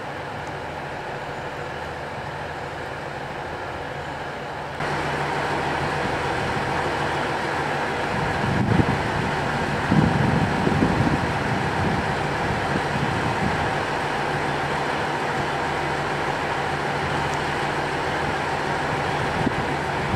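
KiHa 48 diesel railcar idling at a standstill, a steady low engine hum that grows rougher and louder for a few seconds near the middle.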